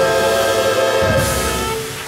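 Jazz big band of brass, saxophones, bass and drums holding a final chord. A cymbal crash comes in about a second in, and the chord breaks off shortly before the end.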